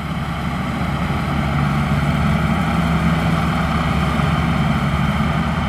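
Maxxi Bimo Xtreme combine harvester running steadily in a rice field, its engine holding a constant speed with the machinery's even noise over it.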